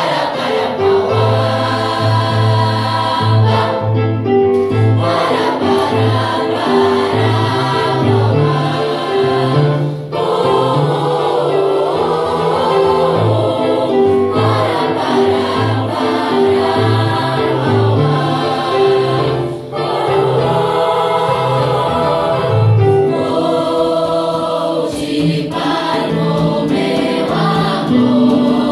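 Youth choir of children and teenagers singing a song together, over a repeating rhythmic line of low notes. The singing breaks briefly twice between phrases, about ten and twenty seconds in.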